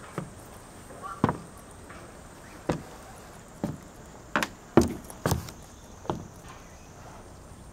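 About eight irregular knocks and thumps as someone moves about on a small fibreglass boat, the loudest coming close together around the middle.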